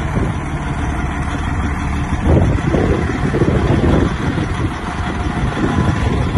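Detroit Diesel Series 60 inline-six in a 1999 Western Star 4900 E truck tractor idling with a steady low drone, with a louder, rougher stretch between about two and four seconds in.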